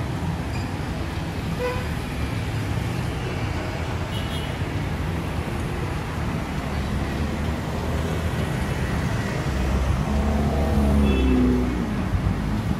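Street traffic: a steady wash of cars and motorbikes going by. About ten seconds in a louder vehicle passes close, its engine rumble rising and then falling in pitch as it goes by.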